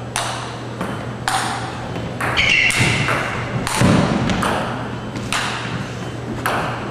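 Table tennis ball being struck hard back and forth with paddles from far behind the table and bouncing on the tabletop: sharp pops about once a second, each ringing on in the large hall, over a steady low hum.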